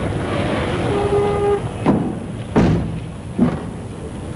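Steady background rumble with a short horn toot about a second in, followed by three dull thuds.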